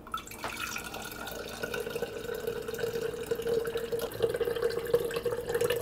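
Cloudy rice-wash water pouring from a bowl through a fine stainless-steel mesh strainer into a glass jar. It is a continuous pouring trickle that grows a little louder as the pour goes on.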